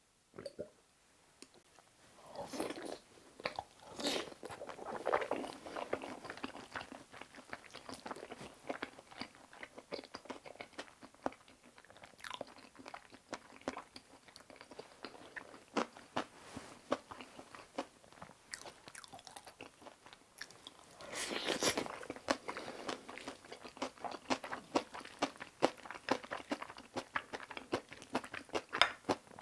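Close-miked chewing and crunching of kimchi fried rice, with wet mouth sounds and many small clicks. The sound is denser and louder a few seconds in and again about two-thirds of the way through.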